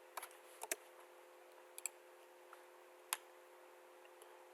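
About five faint, sharp computer mouse clicks at irregular intervals over a faint steady hum.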